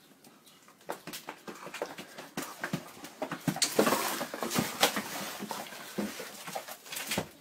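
Grocery bags and packages rustling and knocking as dogs handle them, with many small clicks and taps. The rustling is loudest a few seconds in and cuts off suddenly near the end.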